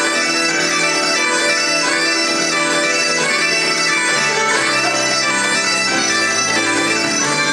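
Two sets of bagpipes playing a traditional tune in unison over steady drones, with fiddle and keyboard accompanying.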